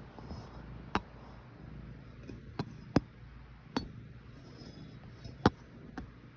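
About six sharp clicks and clinks of something hard being handled, spaced irregularly, the loudest about three seconds in and again near the end, over a low steady hum.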